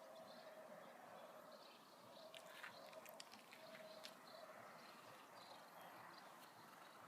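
Near silence: faint room hiss with a few soft clicks about two to three seconds in.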